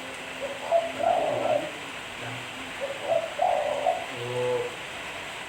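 Spotted dove (tekukur) cooing: two call phrases about two seconds apart.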